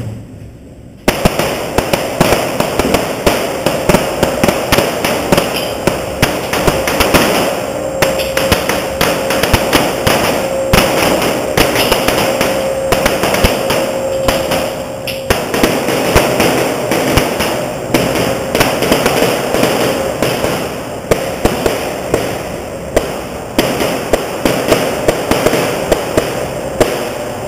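Rapid 9mm pistol gunfire from several IPSC stage runs mixed together, so the shots overlap into a dense, continuous volley echoing in a concrete indoor range; it starts about a second in.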